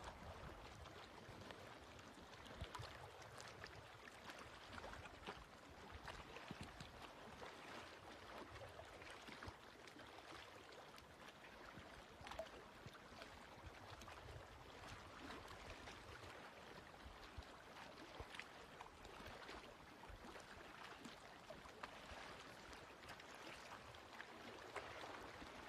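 Faint lapping of small waves on a mountain lake, little more than near silence.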